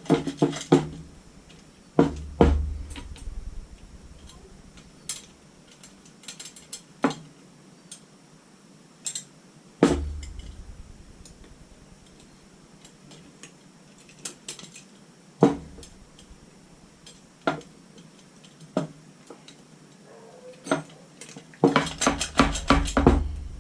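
Steel wire spokes clinking and knocking against a motorcycle wheel hub and rim as the wheel is laced by hand: irregular metallic clicks and taps, a few heavier knocks, and a quick flurry of clinks near the end.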